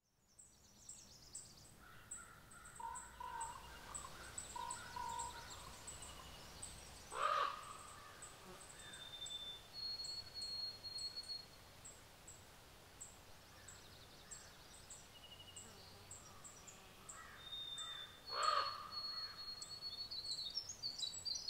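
Woodland bird chorus: a thin, high chirp repeating all through, scattered whistled song phrases, and two louder harsh calls, one about seven seconds in and another about eleven seconds later.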